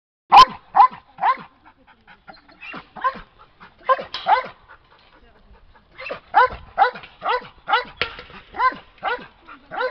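Dog barking repeatedly, short barks that drop in pitch, coming about two a second in two runs with a pause of a second or two around the middle.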